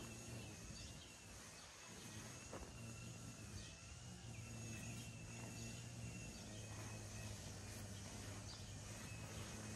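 Faint outdoor ambience: a continuous high, wavering trill and a few short bird chirps over a steady low hum.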